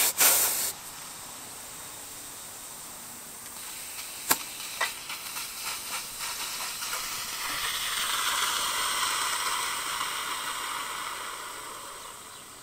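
Compressed air hissing at the valve stem of a flat truck tire being aired up from an air compressor's hose. A couple of loud knocks at the very start, a sharp click about four seconds in and a run of small clicks, then a steady hiss that builds and fades off near the end.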